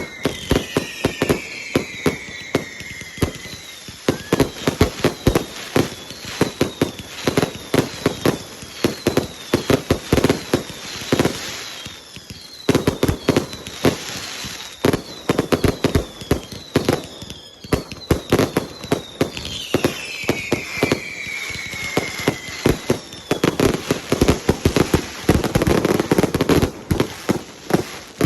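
Fireworks display: a dense, rapid run of bangs and crackles, with falling whistles near the start and again about two-thirds of the way through.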